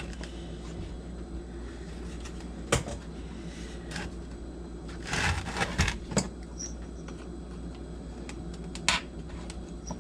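Scattered clicks and light knocks from hands and tools working on a chainsaw being taken apart, with a short spell of rustling handling noise about halfway through, over a steady low hum.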